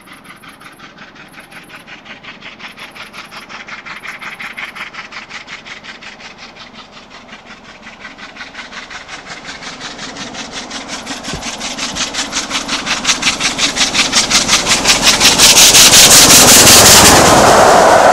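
LMS Princess Coronation Class four-cylinder 4-6-2 steam locomotive Duchess of Sutherland working hard at speed: a rapid, even beat of exhaust chuffs that grows steadily louder as it approaches, loudest about sixteen seconds in as the engine passes close by, then the rush of the coaches rolling past near the end.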